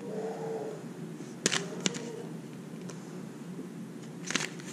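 Plastic blister-pack lure packaging being handled: two sharp plastic clicks about a second and a half in and a few softer taps near the end, over a faint steady hum.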